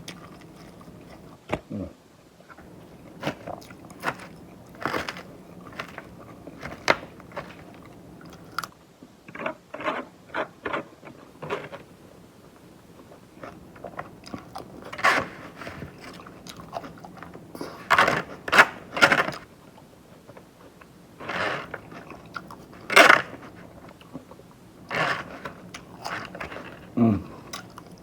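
Close-up chewing and crunching of a crispy chicken salad: irregular crisp bites and chews, with louder clusters of crunches in the second half.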